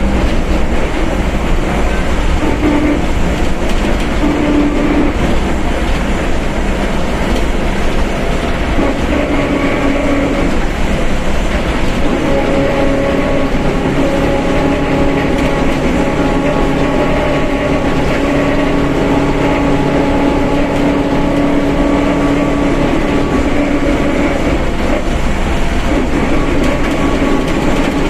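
Mercedes-Benz OF1721 BlueTec 5 bus under way: the diesel engine's low rumble with the differential droning loudly over it, a steady whine of several tones that drift slightly up and down in pitch with speed.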